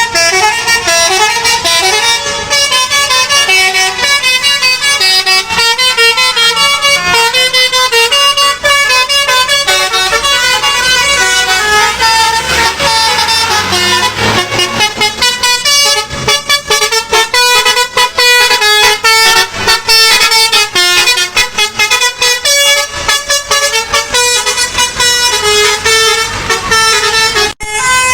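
A bus's Basuri multi-tone musical air horn (a 'telolet' horn) playing a long tune of stepped notes, loud and unbroken, with a brief dropout near the end.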